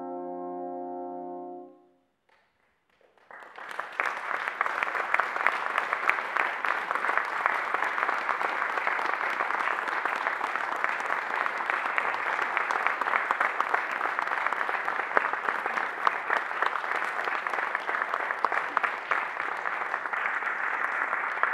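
The last chord of a solo trombone and trombone quartet, held and then dying away about two seconds in. After a moment of silence, an audience breaks into steady applause.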